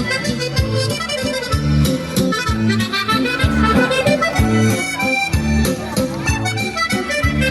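Music with a steady beat: a reedy melody over a repeating bass line.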